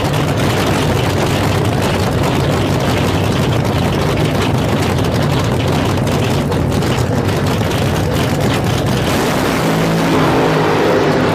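Supercharged, fuel-injected nitro-burning funny car engines of about 3,000 horsepower running at full noise, a harsh rapid crackling roar. About nine seconds in, the crackle thins and a steadier pitched hum takes over.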